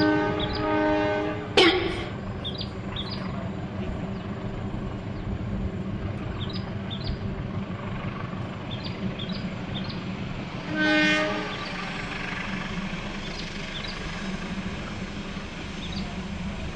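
Distant train horn sounding a multi-tone blast that ends about a second in, then the steady low rumble of the approaching train, with a second short horn blast about eleven seconds in. A single sharp click comes shortly after the first blast, and faint bird chirps sound now and then.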